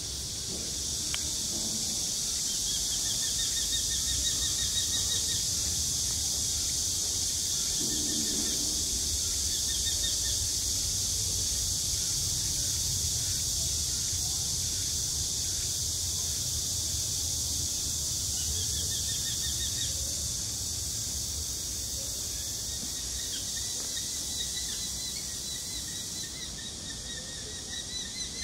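Steady, high-pitched insect buzzing, with a bird giving several runs of rapid, repeated call notes through it.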